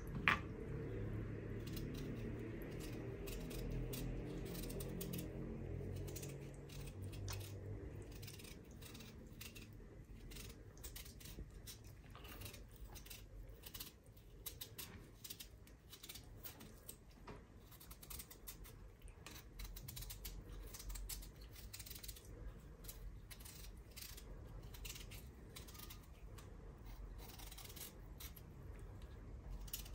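Paring knife cutting the skin off a raw potato in hand: a long run of small, crisp cuts and scrapes, with one sharp click right at the start. A faint low hum runs under the first several seconds.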